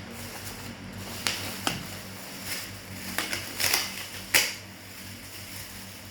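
Handling noises of an item being unboxed and checked: a series of sharp clicks and knocks, about six in all, the loudest about four and a half seconds in, over a steady low hum.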